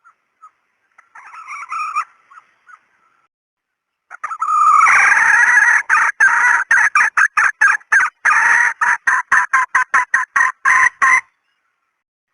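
Red junglefowl calls played as a decoy lure. A short call comes about a second in, then a long run of loud, rapid repeated calls several a second from about four seconds in until near the end.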